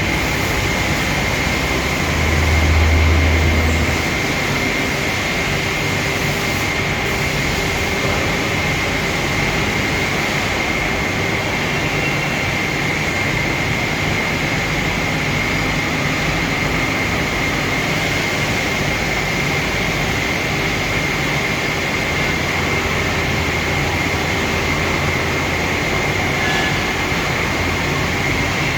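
Machine running steadily: a dense, even noise with a constant high whine, and a low rumble that swells briefly about two seconds in.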